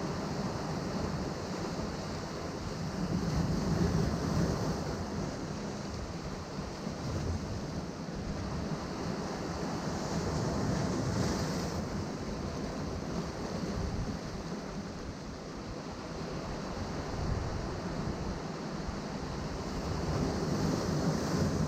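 Ocean waves breaking and washing against rocks below a cliff, in a continuous rush that swells several times as waves come in, with wind buffeting the microphone.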